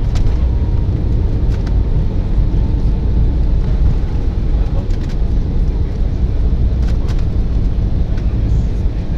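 Cabin noise in an Embraer 175 rolling on the ground after landing: a steady low rumble of its engines and wheels, with a few faint clicks.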